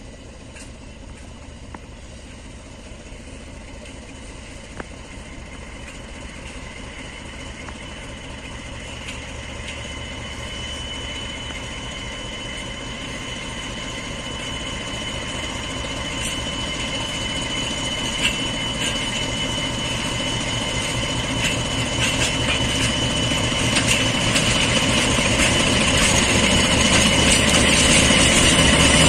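DF7G-C diesel locomotive running as it slowly shunts a train of coaches and tank cars closer, its engine and the rolling wheels growing steadily louder as it nears. A steady high whine comes in about a third of the way through and grows with it.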